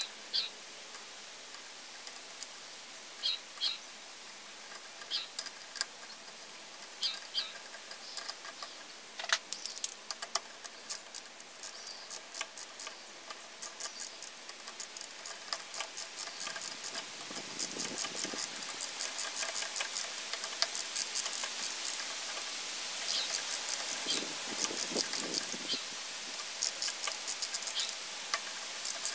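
Socket ratchet clicking in quick runs as the clutch spring bolts of a Honda CM125T clutch are tightened by hand. The clicks come only now and then at first, then run fast and dense from about a third of the way in.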